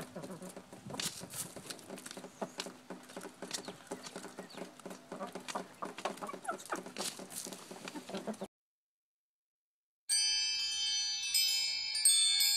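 Chickens pecking at a suet cake and scattered feed on the ground: a quick, irregular run of small taps. About eight seconds in it cuts off into total silence, and from about ten seconds on wind chimes ring, many high tones overlapping.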